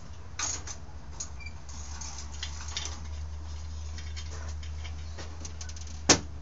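Small clicks and taps of chainsaw parts being handled on a metal workbench, over a steady low hum. A sharp knock about six seconds in, as a part is set down on the bench.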